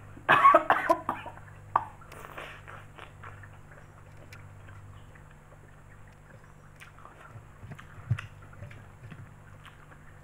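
Spaghetti slurped and chewed close to the microphone: a loud burst of mouth noise in the first second, then quieter wet smacking and chewing with a sharper click about eight seconds in.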